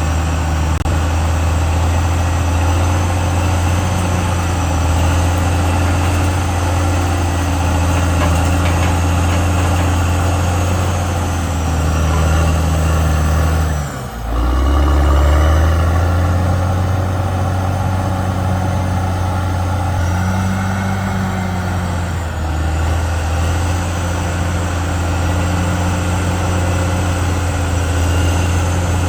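CAT D6R XL bulldozer's diesel engine running while it works, its note shifting up and down with the load, with a brief dip in level about halfway through.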